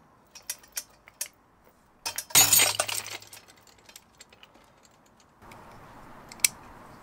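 A 3D-printed polycarbonate pin shearing in a steel double-shear fixture under load: a few faint ticks as the load builds, then one sharp crack a little over two seconds in as the pin breaks at about 192 kg, followed by the fixture and chain clinking briefly. Near the end a single metal click comes as the fixture is handled.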